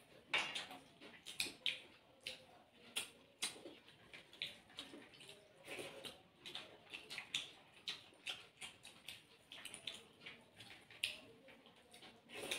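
Close-miked eating sounds from two people eating rice and chicken stew by hand: chewing and lip smacking, with fingers squishing and mixing rice on the plates. It comes as a quick, irregular run of small wet clicks and smacks.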